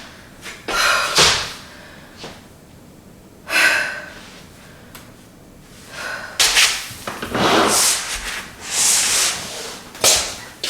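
Irregular bursts of rustling and knocking from objects being handled, busiest in the second half.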